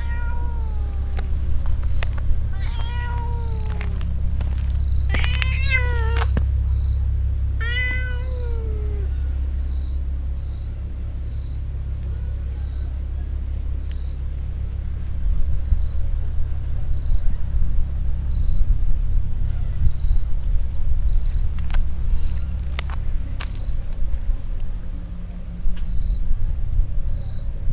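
Stray cat making four drawn-out, wavering meows in the first nine seconds, then falling silent; the odd calls are aimed at a rival cat that has turned up. An insect chirps steadily, about one or two short chirps a second, over a low rumble.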